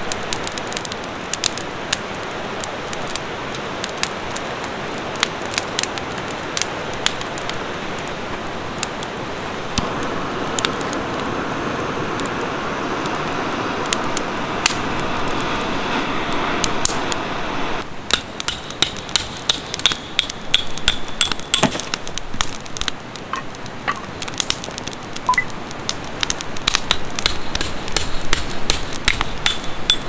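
Steady rushing of a river, swelling for a while in the middle. From a little over halfway, a wood fire crackles with dense, irregular sharp pops and knocks.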